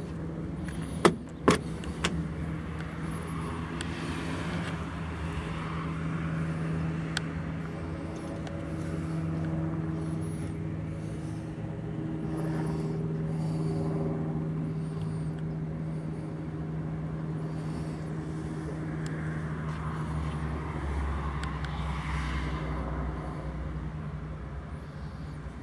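Two sharp clicks about a second in from the 1932 Ford coupe's door handle and latch as the door is opened. Behind them, an engine idles steadily.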